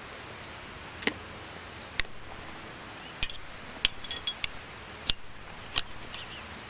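Tire-mounting tools clicking and clinking against a spoked wheel rim while the bead of a mousse-fitted tire is worked on, about eight separate sharp clicks, several close together in the middle.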